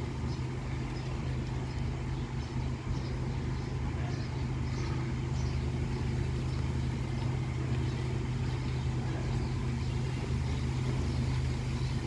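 A steady low mechanical hum, like an engine or motor running without change, with wind rustling through leafy trees.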